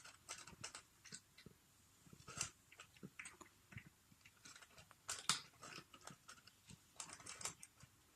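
A cat eating from its bowl: faint, irregular chewing and crunching clicks of a hungry cat working through its food.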